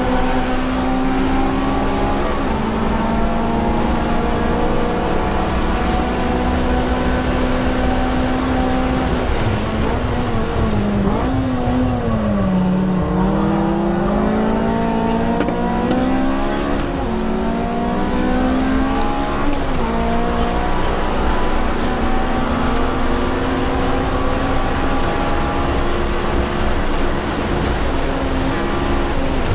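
Honda Civic Si's 2.0-litre K20 four-cylinder heard from inside the cabin, pulling hard at high revs on a straight. About ten seconds in, the revs fall as the car slows for a corner, then climb again in steps through the gears coming out of it and stay high.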